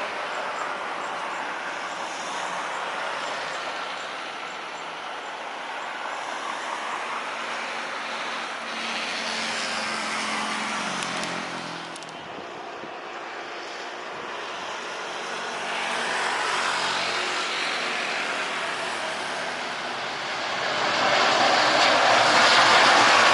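Road traffic going past, a steady rush of tyres and engines with several swells as vehicles pass. One engine note drops in pitch near the middle, and a louder passing vehicle comes in near the end.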